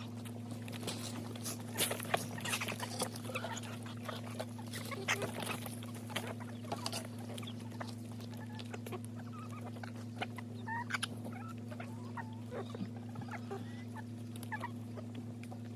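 Chickens clucking while being fed, with many short clicks and taps, over a steady low hum.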